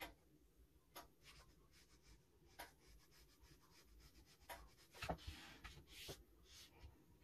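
Faint brushing and tapping of a fine watercolour brush on paper: a few light clicks scattered through, and a longer brush stroke about five seconds in.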